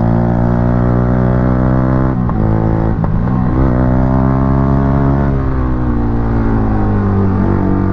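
Yamaha R15 V3's single-cylinder engine with an aftermarket exhaust running under way. Its pitch breaks twice, a little after two and three seconds in, then falls slowly through the last couple of seconds as the bike eases off.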